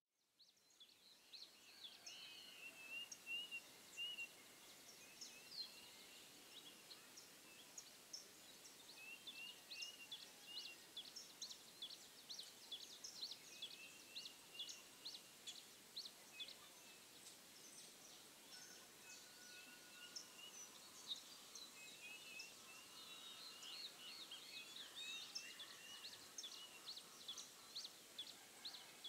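Faint chirping and trilling of small birds, short high calls repeating every half second or so over quiet outdoor hiss.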